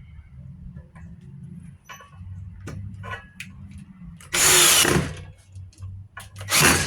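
Power drill run in two short bursts, about four seconds in and again near the end, with small clicks and knocks between.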